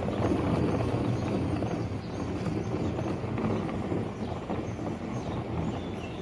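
Hard plastic wheels of a toy wagon rolling over gravel, a steady rattling crunch of small irregular knocks that slowly fades as the wagon moves away.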